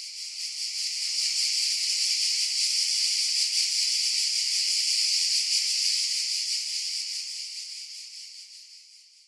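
A high, even hiss with no tone in it, swelling in over the first couple of seconds, holding steady, then fading out near the end.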